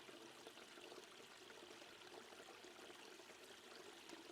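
Near silence: a faint, steady water-like hiss, like a running stream in the background.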